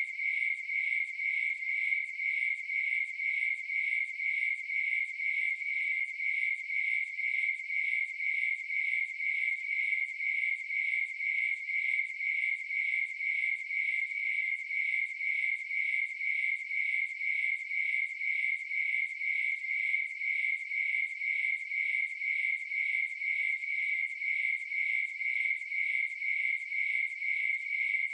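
Crickets chirping: a high, shrill pulsing tone in a steady, even rhythm, with no other sounds.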